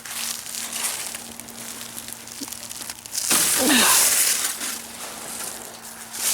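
Footsteps crunching over ice and frozen ground, with a louder, longer crunch and crackle about three seconds in.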